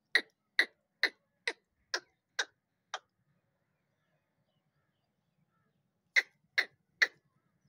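A pigeon keeper making short sharp sounds at a steady pace, about two a second: seven in a row, then a pause, then three more near the end.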